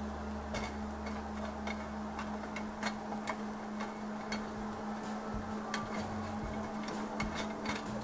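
Scattered light clicks and ticks, one or two a second at uneven spacing, from a hot rectangular egg-roll pan on an electric coil burner as oil is spread across it with a spatula, over a steady low hum.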